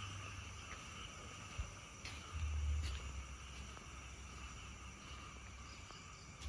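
Steady, high-pitched chorus of night insects and frogs, with a few faint clicks and a short low rumble about two seconds in.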